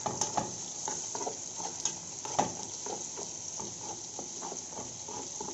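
Crushed garlic frying in a little oil in a pan, a steady sizzle with scattered clicks and taps as it is stirred, cooking until golden.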